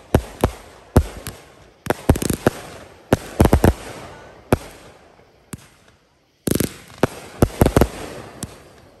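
Consumer aerial fireworks bursting overhead in quick succession: clusters of sharp bangs, several a second, each trailing off. There is a short total gap just past six seconds in.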